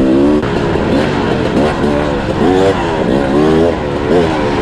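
Sherco 300 SE-R's two-stroke single-cylinder engine revving up and down in quick, repeated surges as the bike is ridden hard over rough ground.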